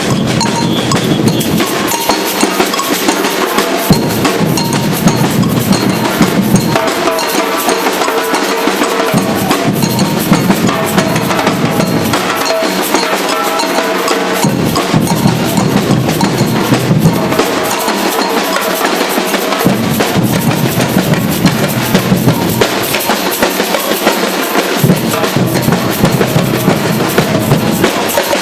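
Batucada samba drum band playing a fast, steady street rhythm, with snares and bass drums. The deepest bass drums drop out and come back every two to three seconds.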